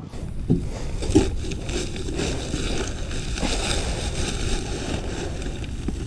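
Dry concrete mix pouring from a split bag into the hopper of a concrete mixer, a steady rushing hiss with a low rumble, after a couple of knocks as the bag is broken open in the first second or so.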